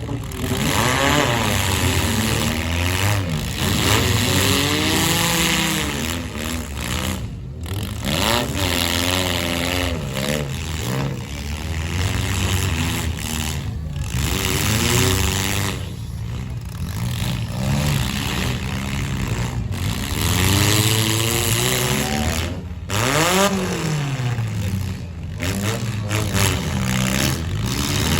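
Several four-cylinder car engines revving up and down over and over, their pitches rising and falling as the demolition derby cars accelerate, brake and back up. The sound drops out briefly a few times.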